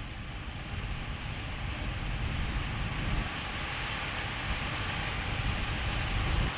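Roar of a violent tornado at close range: a steady, dense rushing noise, heavy in the low end, gradually getting a little louder.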